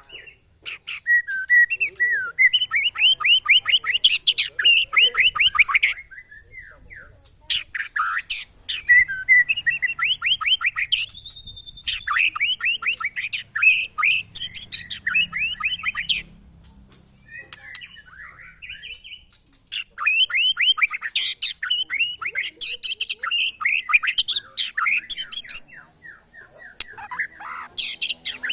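Caged white-rumped shamas (murai batu) singing loud, rapid runs of quickly repeated high chattering notes. The song comes in bursts of a few seconds each, broken by short pauses.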